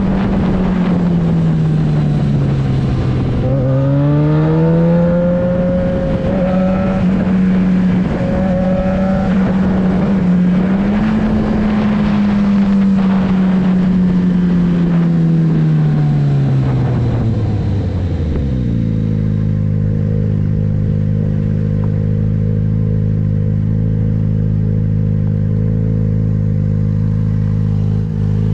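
Yamaha XJ6's 600 cc inline-four engine running through a LeoVince exhaust with the dB killer removed. Engine speed rises and falls smoothly, then winds down about eighteen seconds in and settles into a steady idle.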